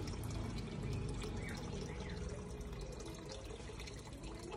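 Steady trickling, splashing water with fine dripping clicks, and a few faint short bird chirps.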